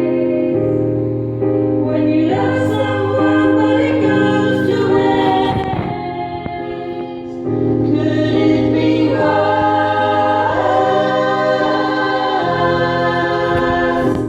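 Women's choir singing a song in parts, over held low accompaniment notes that change every couple of seconds; the singing eases off briefly about halfway through, then comes back in fully.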